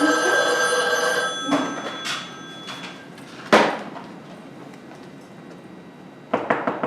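A telephone ringing, stopping about a second in, followed by a couple of single knocks and then a quick run of knocks on a door near the end.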